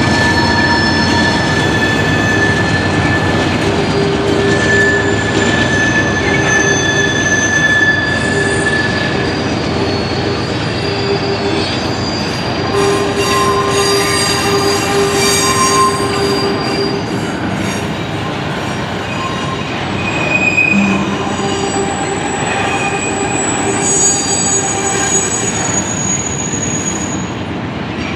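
Freight train rolling past: a steady rumble of the cars' wheels on the rails, with wheel squeal in several thin high-pitched tones that come and go.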